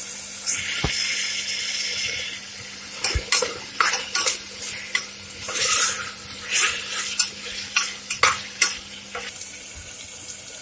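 Ginger-garlic paste, tomatoes and onions sizzling in hot oil in a pressure cooker. From about three seconds in, a spoon stirs the masala and scrapes against the pot in a run of sharp clicks.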